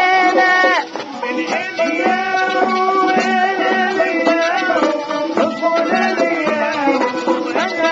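Background music: a melody with sliding, bending notes over a steady accompaniment with light percussion.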